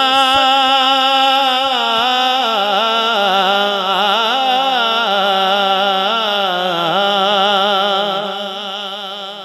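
A man singing a naat, drawing out one long, ornamented note that wavers up and down without a break and grows quieter near the end.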